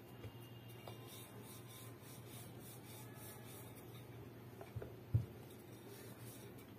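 Grooved wooden rolling pin rolling out bread dough on a floured wooden board: faint rubbing as it rolls, with a few short knocks, the loudest about five seconds in.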